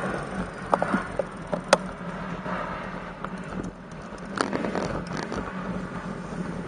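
Steady rushing wind and road noise from riding a road bicycle, with several sharp clicks and rattles, the loudest just under two seconds in and again about four and a half seconds in.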